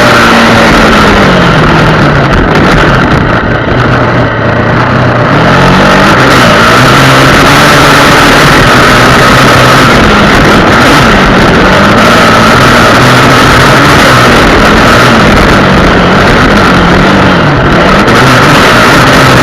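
Honda XR Tornado motorcycle's single-cylinder engine running under way, its pitch falling and rising again several times as the throttle comes off and on.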